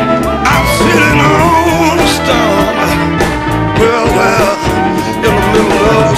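Rock-and-roll song with guitar and a steady drum beat, its melody line bending in pitch.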